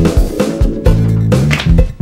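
Instrumental background music with a bass line and a steady drum beat.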